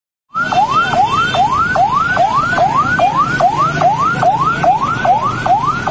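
Electronic siren on a municipal waste-service truck sounding a fast yelp, each tone rising quickly and dropping back, about three times a second. It starts abruptly just under half a second in, over low vehicle rumble.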